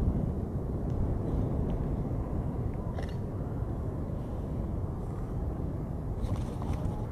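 Steady low rumbling roar of a large wedge tornado mixed with wind noise on the microphone, with a faint click about three seconds in.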